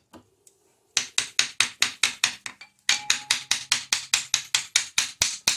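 Screwdriver handle tapping a tight steel wrist pin through a piston and connecting rod, a fast, even run of sharp taps, about seven a second. The taps start about a second in and break off briefly near the middle.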